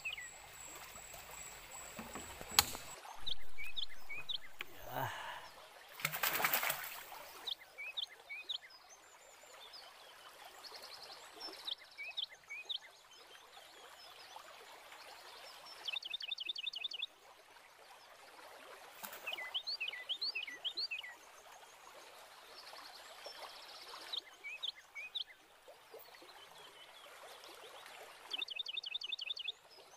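A bird repeating a short phrase of quick rising chirps every three to four seconds over a faint background of running water. A sharp click about two and a half seconds in and two brief noisy bursts in the first seven seconds stand out above it.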